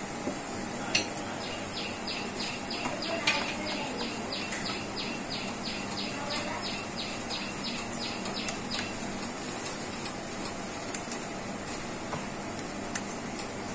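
A bird chirping in a rapid, even series of short high chirps, about four a second, for some seven seconds, then stopping. A few faint clicks of a knife against a steel tin come through under it.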